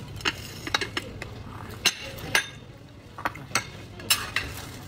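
Metal spoon and fork clinking against porcelain plates and bowls while eating: about eight sharp clinks at irregular intervals.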